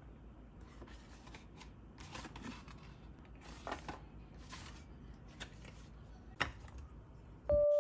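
A plastic-wrapped frozen meal tray handled on a countertop: faint rustling and crinkling of the packaging in short bursts, with a sharp tap about six seconds in. Piano music comes in at the very end.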